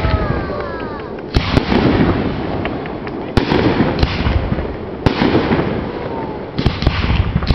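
Aerial fireworks bursting overhead: a string of sharp bangs, roughly one every second or two, each trailing off before the next.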